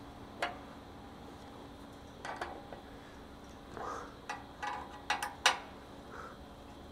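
Scattered light metal clicks and scrapes of a 3/16 Allen key working the button-head bolts of a steel skid plate's access door, coming as single ticks and small clusters, the loudest about five seconds in.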